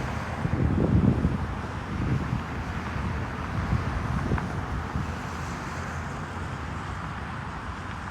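Wind buffeting the microphone in gusts, strongest in the first two seconds, over a steady outdoor background rumble.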